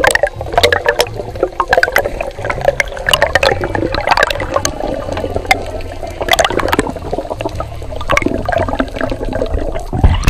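Underwater sound picked up by a camera as a diver swims: water rushing and gurgling past the housing, with many sharp crackling clicks throughout.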